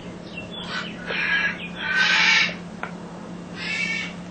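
A bird giving three loud, harsh calls about a second apart, over a steady low hum.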